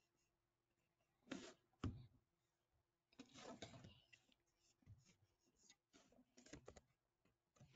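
Near silence: room tone with faint scattered clicks and brief rustles, the two strongest about a second and a half in.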